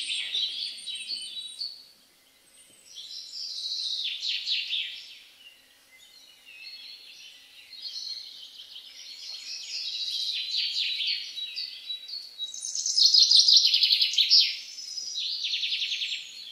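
Recorded birdsong played back over a theatre sound system: fast high chirps and trills in several phrases with short pauses between.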